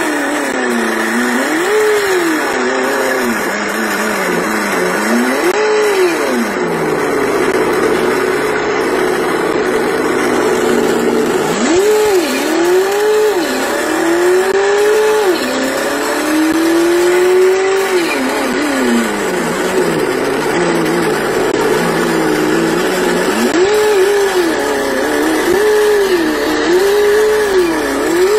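Engine sound revving up and down over and over in smooth rising and falling sweeps, with a steady high whine underneath.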